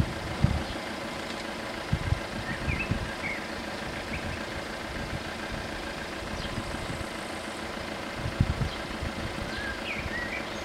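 A waiting car's engine idling steadily, with wind gusting on the microphone now and then and a few short bird chirps, about two and a half seconds in and again near the end.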